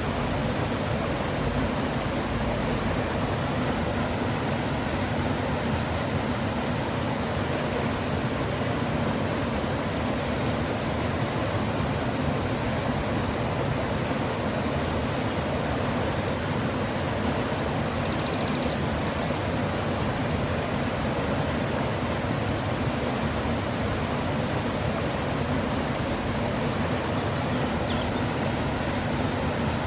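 Mountain river flowing: a steady, even rush of water. A faint high chirp repeats evenly above it, about two to three times a second, pausing briefly twice.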